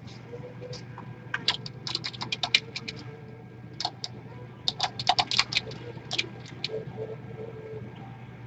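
Computer keyboard typing: irregular runs of quick key clicks, over a faint steady hum.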